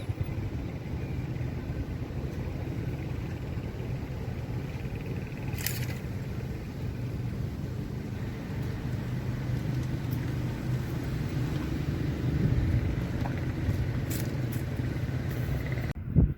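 A car running steadily, a low hum with road noise, which cuts off abruptly just before the end.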